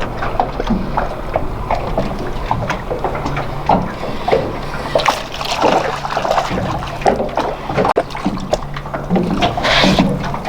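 Water sloshing and splashing against a small fishing boat, with scattered irregular knocks and clicks of gear on the boat and a faint steady low hum underneath.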